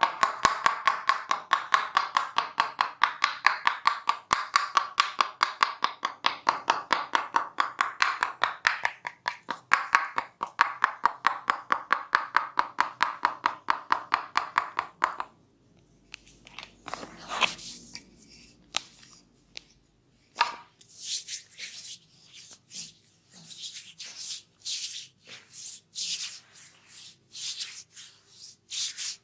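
A masseur's hands slapping in a rapid, even rhythm: percussive hacking or chopping massage strokes. About halfway through the strikes stop abruptly and give way to irregular rubbing and brushing of hands over skin or hair, with an occasional slap.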